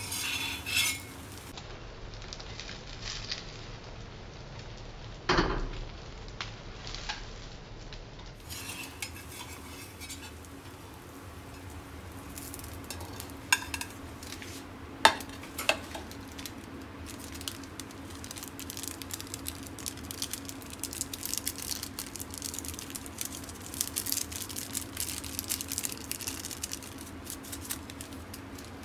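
Egg-and-bread omelet frying in a cast iron pan, with a metal spatula scraping under it and clinking against the pan and plate. There are a few sharp knocks, and a crackling sizzle grows denser in the second half.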